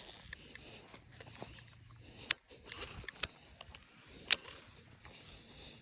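Three sharp clicks about a second apart over faint outdoor background noise, with a few fainter ticks between them.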